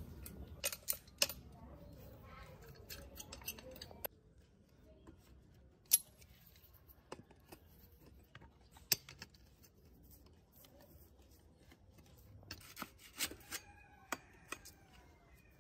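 Scattered metal clicks and clinks of tools and rusty steel bicycle parts being handled during disassembly of a child's bike, with a quick run of knocks near the end as the fork is worked out of the head tube.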